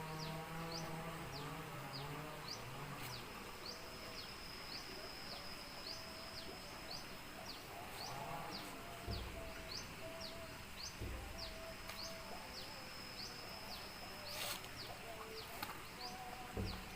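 Outdoor rural animal sounds: short high chirps repeating two or three times a second over a steady high buzz, with short mid-pitched calls here and there. A few brief dull thumps stand out.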